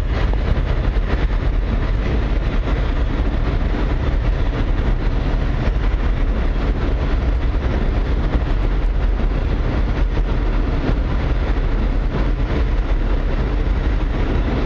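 A train passing, a steady, loud rumble and rush of noise that holds level throughout.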